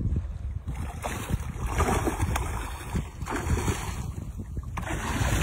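Wind buffeting the microphone, with a hooked snook thrashing and splashing at the water's surface.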